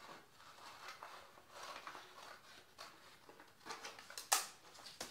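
Scissors snipping through a sheet of paper, then the paper rustling as it is handled, with one sharper click near the end.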